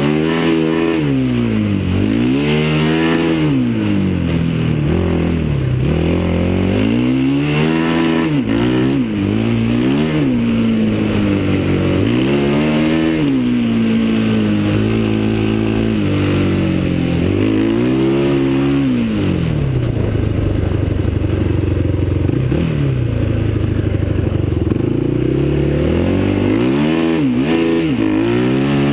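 Dinli 450cc ATV's single-cylinder four-stroke engine being ridden hard, its pitch climbing and falling back again and again, about once every two seconds, as the throttle is worked. For several seconds past the middle it holds a steadier pitch before revving up and down again near the end.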